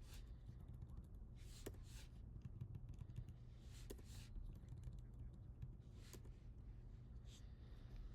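Faint typing on a computer keyboard: runs of quick, light key clicks, with a few short soft hissy noises in between.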